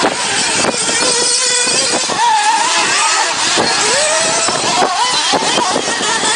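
Radio-controlled off-road toy cars running, their small electric motors whining in a pitch that rises and falls with the throttle, over a steady rushing noise.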